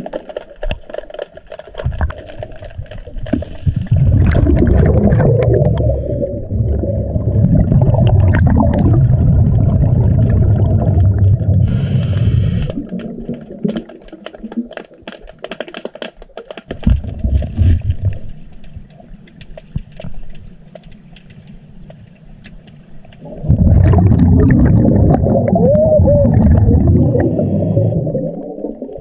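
Scuba diver breathing through a regulator underwater, heard from a head-mounted camera: three long exhalations of rumbling bubbles, with quieter inhalation stretches between them. Scattered clicks run throughout.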